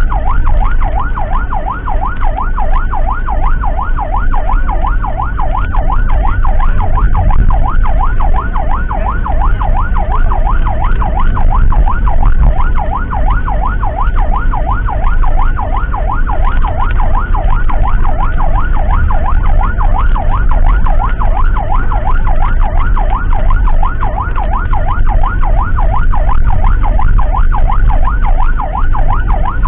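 Emergency siren in a fast yelp, sweeping up and down several times a second without pause. Under it runs the low rumble of a moving vehicle's engine and road noise.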